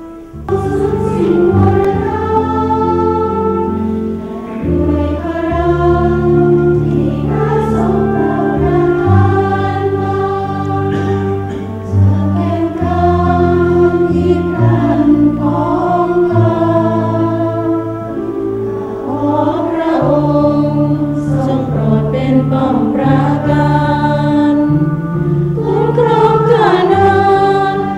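A choir of women religious sings a hymn together from booklets over sustained low accompanying chords: the sung psalm that follows the first reading at Mass. The singing starts just after the reading ends.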